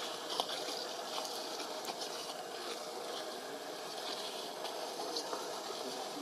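Steady rushing background noise with faint light crackles and rustles scattered through it.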